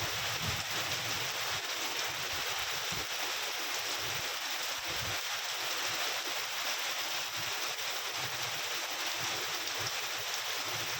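Steady rain falling, an even hiss that holds without letup, with a few soft low bumps here and there.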